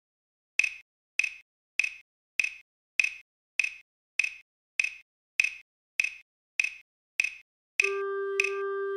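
Metronome clicks from notation-software playback, about 100 beats a minute, twelve on their own. Near the end a playback clarinet comes in, holding a steady note (written A, concert G) while the clicks go on.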